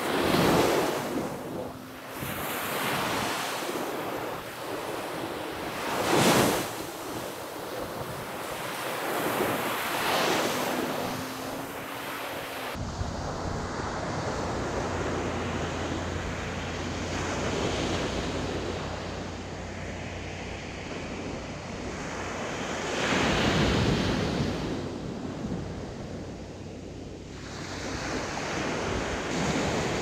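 Ocean surf breaking on a sandy beach, the waves swelling and crashing every few seconds, loudest about 6 and 24 seconds in. Wind buffets the microphone, with a low rumble from about 13 seconds in.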